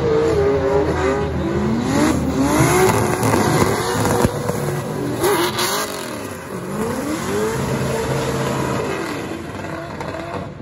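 Drift car engines revving hard as two cars slide in tandem on a wet track. The pitch swings up and down again and again as the throttle is worked, and holds high for a second or two at a time. There is one sharp crack about four seconds in, and the sound fades a little toward the end.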